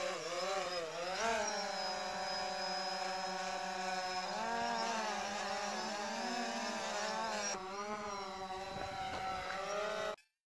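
Quadcopter drone hovering close by, its propellers whining in several pitches that wobble up and down together as the motors adjust. The sound cuts off abruptly near the end.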